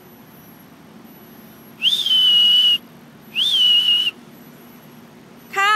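A dog-training whistle blown in two blasts about a second long each, each with a quick upward flick then a steady high note: a recall signal calling the dog back. A short voice call follows near the end.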